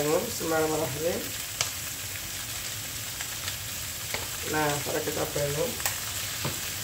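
Tofu cubes sizzling steadily in hot oil in a frying pan while sweet soy sauce is drizzled over them, with a few light clicks. A voice sounds briefly twice, at the start and about two-thirds of the way through.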